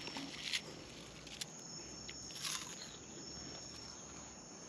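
Night insects trilling steadily in a high thin tone, with a few faint crunches of kale chips being chewed.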